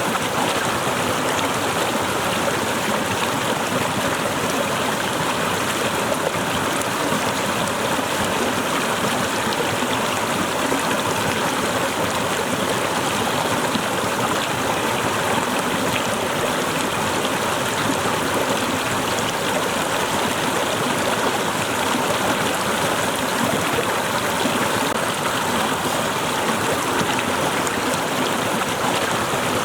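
Waterfall: water cascading and splashing in a steady, even rush.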